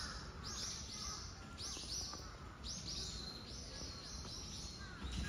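Birds calling: a run of short, high chirps, several a second, with a few lower calls near the start and end, over a steady low background noise.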